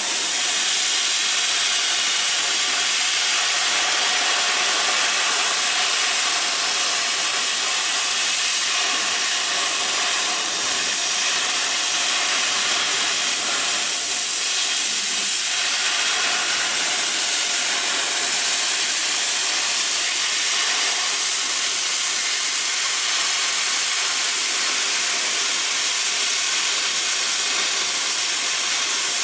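Oxy-fuel cutting torch on a circle-cutter attachment, cutting a 3-inch hole through metal plate: a steady, loud hiss of the cutting jet.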